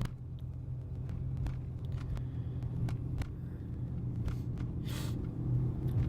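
Car engine and road rumble heard from inside the moving car's cabin, a steady low hum, with a few faint clicks and a short hiss about five seconds in.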